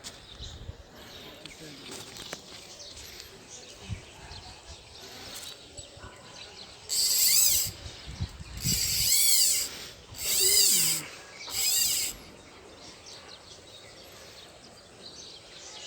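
An animal calling loudly four times in about five seconds, each call lasting about a second and arching up and down in pitch, over a quiet outdoor background.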